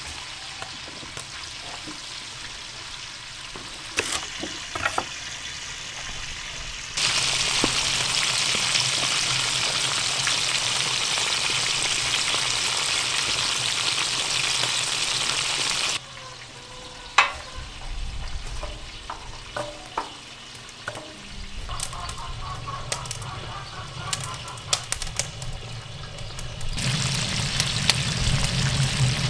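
Whole fish frying in hot oil in a wide steel pan: a steady sizzling hiss that grows much louder about a quarter of the way in, drops back a little after halfway, and rises again near the end, with scattered pops and clicks.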